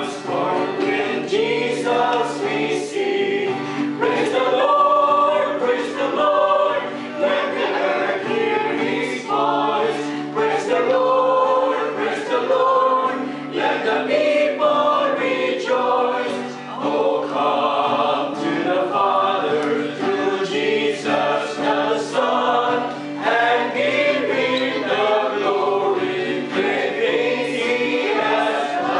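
A small group of men and women singing a hymn together from song sheets, in a continuous verse with no pauses.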